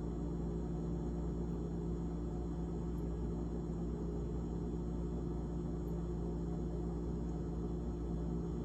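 GE GTH18XCTZRBB refrigerator running with a steady, unchanging hum made of several low tones.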